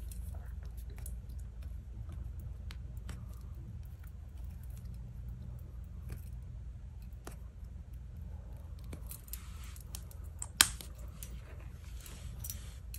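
Small metal clicks and light rustling as a gold-plated metal padlock is handled, with one sharp click about ten and a half seconds in, over a low steady hum.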